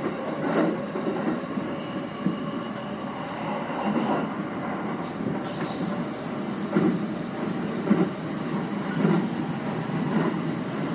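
JR East E217 series electric train running, heard from the cab at the coupling between two units: a steady rumble of wheels on rail with irregular knocks. A thin high whine joins it about two-thirds of the way through.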